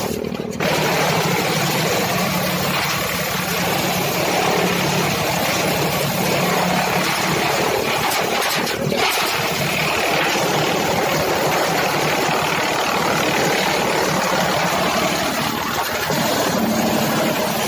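Tractor engine running steadily, driving a PTO-powered chaff cutter and shredder through its shaft: a loud, continuous mechanical noise.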